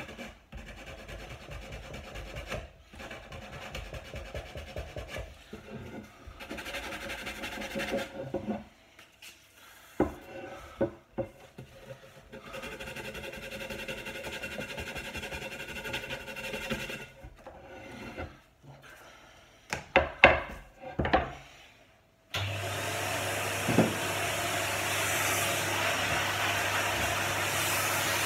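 Sandpaper rubbed by hand over a wooden table piece in back-and-forth strokes, broken by a few sharp knocks. About 22 seconds in, a loud, steady whooshing motor noise with a low hum starts abruptly and keeps going.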